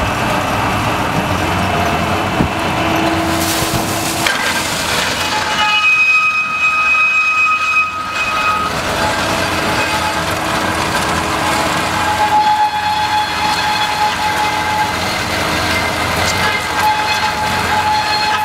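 Truck-mounted core drilling rig running steadily while the drill rod turns in the borehole. A high whining squeal comes in about six seconds in and lasts about three seconds, and a lower steady whine runs through the second half.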